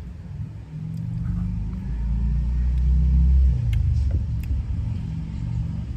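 A car engine rumbling close by, swelling over the first three seconds or so and easing off a little after that.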